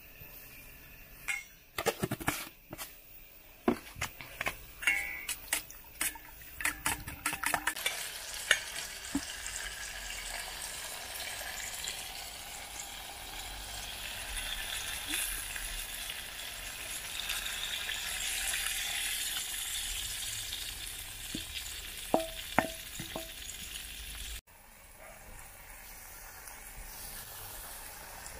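A spoon beating eggs in a steel bowl, quick irregular clicks against the metal for the first several seconds; then the eggs go into hot fried tomato in a metal pot and sizzle steadily while a wooden spoon stirs, with a few knocks on the pot. The sound cuts off abruptly and comes back as a quieter sizzle of the eggs scrambling.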